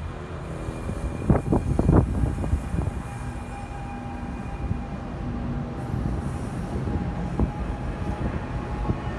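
Train rolling through the station with a steady low rumble. About a second in come a few sharp knocks of wheels crossing rail joints, and a faint steady high tone follows.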